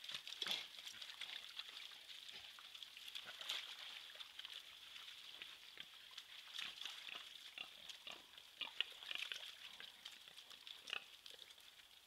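Wild boar grunting softly while wallowing in a mud pool, with irregular wet rustles and splashes in the mud, over a steady high hiss.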